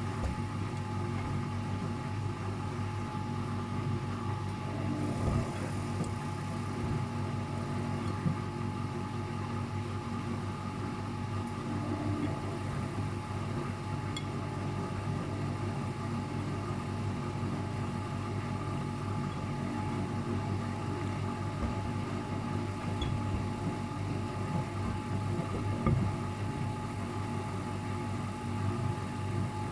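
Luxor WM 1042 washing machine spinning steadily with an unbalanced load, a constant motor and drum hum with a few short thumps scattered through it.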